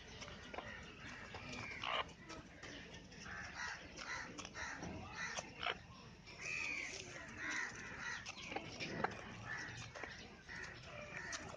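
Birds calling: many short, harsh calls in quick, irregular succession, with a few sharp taps in between.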